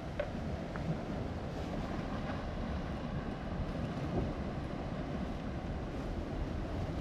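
Steady wind buffeting the microphone over the wash of surf on a rocky shore, with a few faint clicks and rustles as litter is gathered into a plastic sack.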